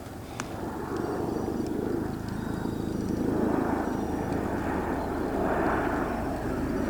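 Bell Boeing MV-22B Osprey tiltrotor's proprotors and twin turboshaft engines, a low rotor beat under a broad rushing noise, growing steadily louder as the aircraft approaches to land.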